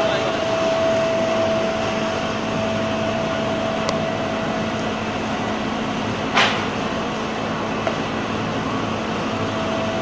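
Steady roar of a cupola furnace's air blower, with a steady whine that fades out about halfway and comes back near the end. A single sharp knock sounds about six and a half seconds in.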